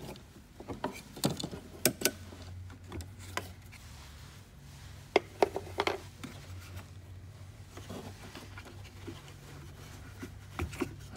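Scattered light clicks and knocks of metal wiper linkage arms and their rubber cover being handled and snapped into place under a truck's cowl. The sounds are busiest in the first six seconds and return briefly near the end, over a low steady hum.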